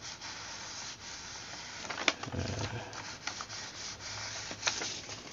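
Clothes iron sliding and pressing over a sheet of paper laid on a waterproof jacket, a steady papery rubbing with a sharp click about two seconds in. The iron is heating the jacket's seam-sealing tape to re-bond it.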